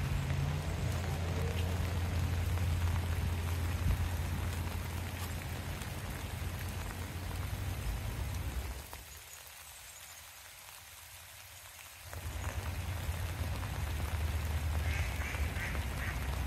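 Steady rain falling over a low rumble, dropping quieter for about three seconds in the middle. Ducks quack a few times near the end.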